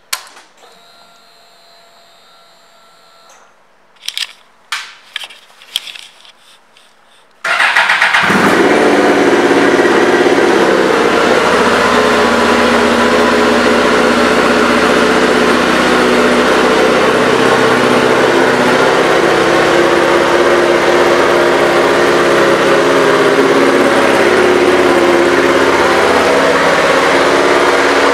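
2006 Suzuki GSX-R1000 inline-four with an aftermarket exhaust: a few clicks, then the engine catches suddenly about seven seconds in and runs steadily for the rest of the time.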